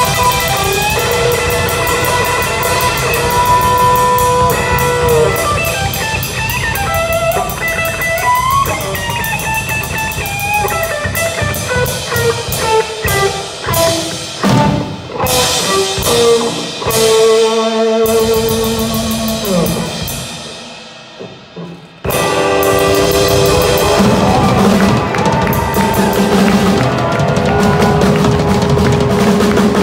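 Live electric guitar through an amplifier and a drum kit playing rock together. Busy single-note guitar lines over the drums give way about halfway to separate stop-start hits with cymbal crashes, then a held note that fades almost to nothing. Both instruments come back in suddenly and loud about 22 seconds in.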